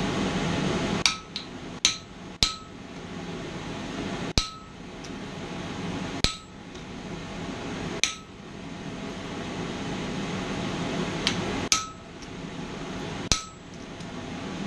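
Blacksmith's hand hammer striking steel at the anvil: about eight separate blows, one every one to two seconds, each with a short metallic ring, as decorative detail is worked into a mild steel bracket.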